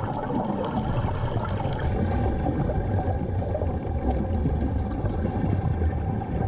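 Underwater, a steady low engine drone from the boat overhead, mixed with the rush of air bubbling out of a diver's hookah air hose.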